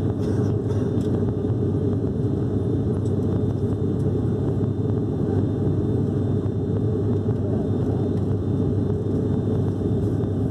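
Steady low drone of an ATR 72-600's two turboprop engines and propellers heard inside the cabin at climb power just after takeoff. It holds an even level, with no change in pitch.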